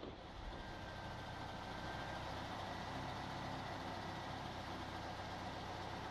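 Truck-mounted crane's diesel engine running steadily as it holds a roof truss on the hook, with a faint thin whine above the hum.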